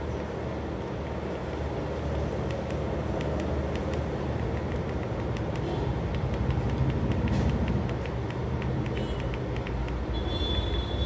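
Steady low hum of an LED DLP video projector's cooling fan. Through the middle, a quick run of light clicks from remote-control buttons being pressed.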